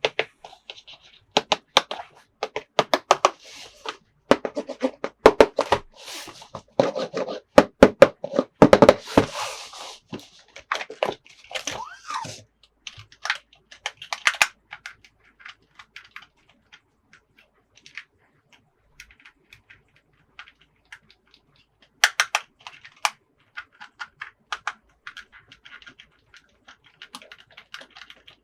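Plastic toys and packaging being handled: a run of sharp clicks, taps and knocks with bits of crinkling, busiest in the first half and again about two-thirds of the way in.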